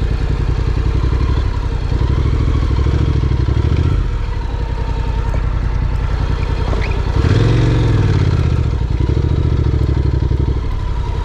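Honda NC750X's parallel-twin engine running as the motorcycle is ridden, its note rising and falling with the throttle, with a louder rev about seven seconds in.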